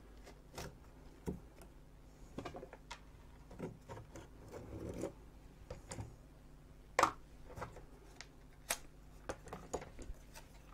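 Light handling clicks and taps of circuit boards as an LCD module is taken off a display board, with a sharper click about seven seconds in.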